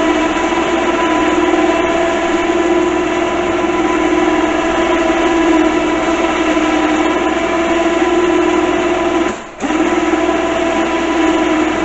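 Kawasaki Mule utility vehicle's engine running steadily, with a held whining tone over it. The sound cuts out briefly about nine and a half seconds in, then resumes.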